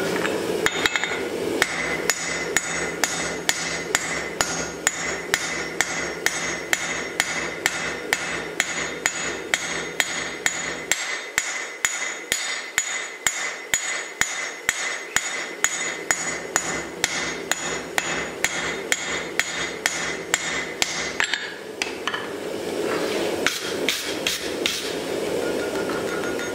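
Hand hammer striking red-hot wrought iron on an anvil in a steady rhythm of about three blows a second, each blow ringing off the anvil. About three-quarters through the hammering stops briefly, then a few more blows follow.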